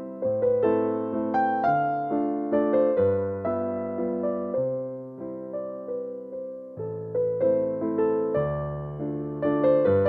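Background piano music, an electric-piano-like melody of struck notes that each die away, with a bass note changing every second or so.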